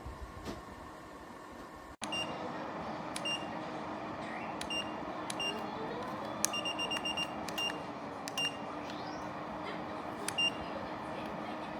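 Short electronic beeps from an electric ceramic fan heater's controls, one per button press: single beeps a second or so apart, with a quick run of about six near the middle. A steady hiss runs underneath.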